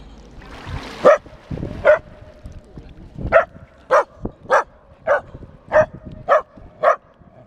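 Australian Terrier puppy barking in a steady series of short, high yaps, about nine of them at nearly two a second.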